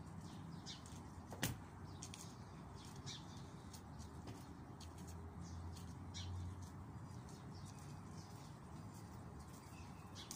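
Faint outdoor background of birds chirping in short scattered calls over a low steady hum, with one sharp click about a second and a half in.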